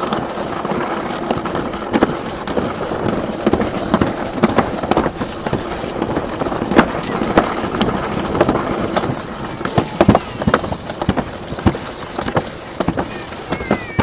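Alpine slide sled running down the track: a steady scraping rumble broken by frequent, irregular clacks and knocks as the sled rattles along the trough.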